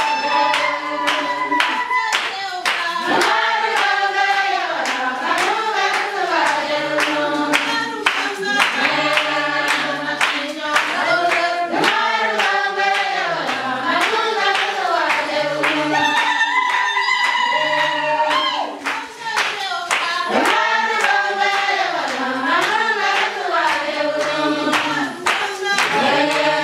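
A group of mostly women's voices singing a Marakwet traditional dance song together, with steady hand-clapping keeping the beat.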